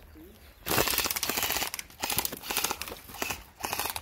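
Airsoft rifle firing on full auto in three bursts of rapid clicking shots. The first burst starts just under a second in and lasts about a second.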